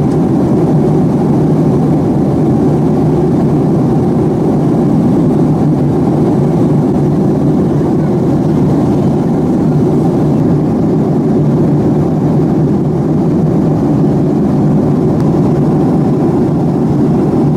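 Jet airliner cabin noise at cruise: the steady, unbroken rush of the jet engines and the airflow over the fuselage, heard from inside the cabin.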